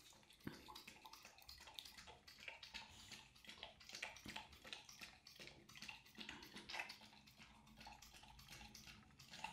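Pit bull lapping liquid from a glass tumbler: faint, quick wet laps and slurps, about three or four a second.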